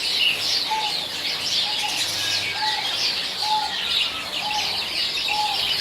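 Many small caged birds chirping together in a dense, continuous twittering. Through it runs a short, lower note that repeats about once a second.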